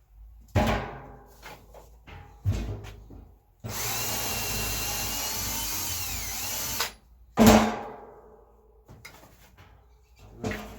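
Power drill running for about three seconds through a small piece of wood, its pitch falling as it stops, while the wood is made into a washer. Sharp knocks of handling come before and after it.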